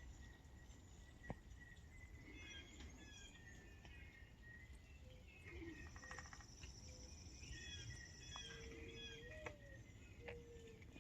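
Faint birdsong: several birds chirping and whistling, with short high chirps, a buzzy trill midway and some low whistled notes over a quiet rural background.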